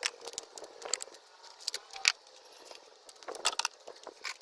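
Scattered light clicks and clinks of small hard objects being handled, with a quick cluster of sharper clicks about three and a half seconds in.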